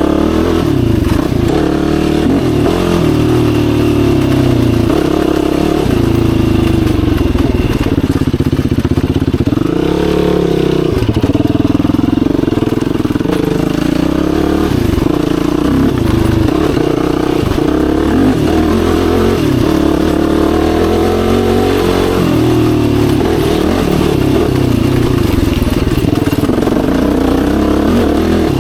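Yamaha YFZ450R sport quad's 449cc single-cylinder four-stroke engine under way, its revs rising and falling again and again as the throttle is worked.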